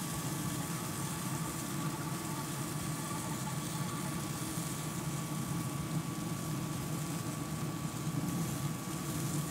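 Grilla Grills Silverbac pellet grill running at high heat: a steady hum from its fan and fire, with a thin, steady high whine over it.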